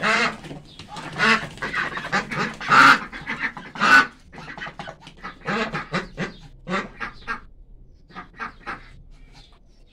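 A flock of white Pekin ducks quacking in rapid, overlapping calls, the alarmed racket of frightened ducks. The calls come thick and loud at first and thin out to a few scattered quacks in the last couple of seconds.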